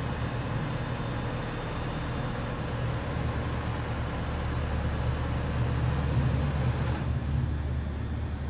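Steady low engine hum with an even hiss above it; the hiss drops away about seven seconds in.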